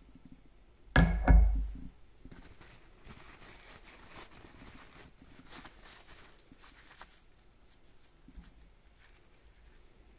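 A sharp metallic clank with a short ring about a second in, then a few seconds of faint rubbing and scraping with small clicks: hand cleaning of steel bearing-carriage parts.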